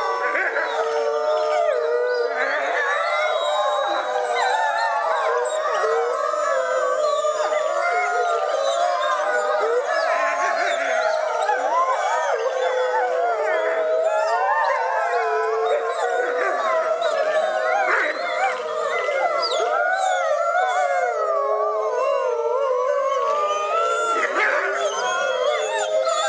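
A pack of Hudson Bay wolves howling in chorus, many overlapping voices gliding up and down without a break.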